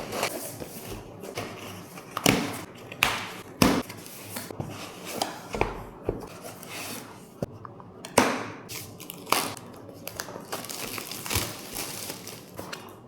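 Packaging being opened and handled: irregular crinkling, rustling and tearing, broken by a few sharper knocks, the loudest about two, four and eight seconds in.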